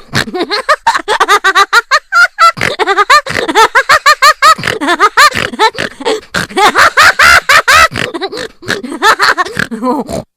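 Cartoon laughing sound effect: a long run of rapid, high-pitched 'ha-ha' bursts, several a second, cutting off near the end.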